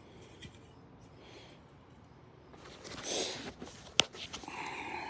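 Small plastic parts and packaging being handled during an unboxing: a brief rustle about three seconds in, then one sharp plastic click about a second later, followed by a light scraping.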